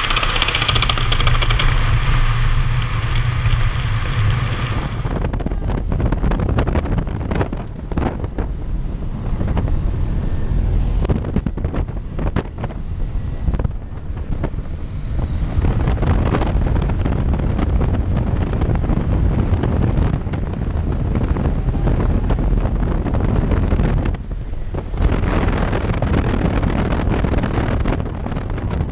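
Wind on the microphone. About five seconds in this gives way to the steady drone of a small single-engine jump plane's engine and rushing air, heard inside the cabin. About 25 seconds in the wind noise grows louder and brighter, with the aircraft door open.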